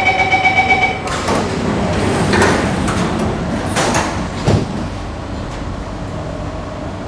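Singapore MRT train's door-closing warning: a rapid beeping tone for about the first second. Then the train's sliding doors shut with a few knocks and a low thud about four and a half seconds in, and the steady hum of the stopped train follows.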